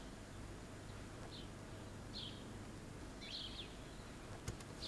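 Faint, short bird chirps, about four of them roughly a second apart, over quiet room tone, with a couple of light clicks near the end.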